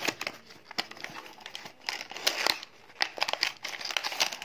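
Packaging of a clip-on phone lens kit being handled and opened: crinkling and rustling in irregular bursts, with small clicks and taps.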